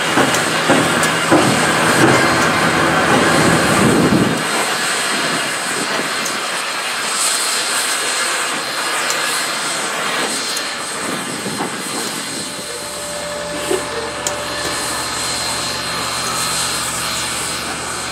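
A steam locomotive, the 2-8-2 Southern 4501, standing under steam with a steady hiss while a turntable slowly turns it. A low steady hum joins about two-thirds of the way through.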